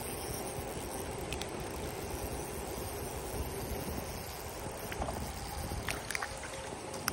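Steady outdoor noise of wind and running water, with a few faint short clicks.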